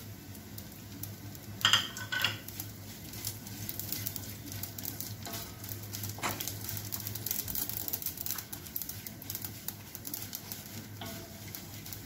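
Cashew and almond slivers with poppy seeds sizzling in ghee in a stainless-steel kadhai, stirred with a wooden spatula that scrapes and taps against the pan. Two louder knocks come about two seconds in.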